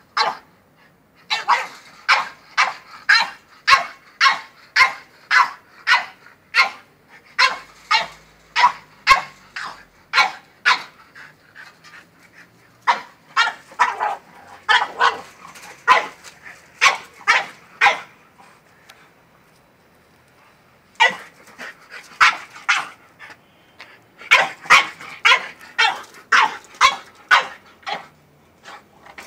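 French bulldog barking rapidly and repeatedly, about two barks a second, in long bouts broken by two short pauses; the dog is worked up over a goat behind the fence.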